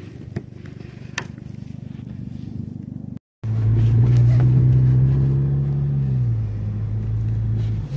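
A car engine running with a steady low hum, its pitch dropping slightly about six seconds in. Before a cut about three seconds in, there is a fainter rumble with a few light clicks.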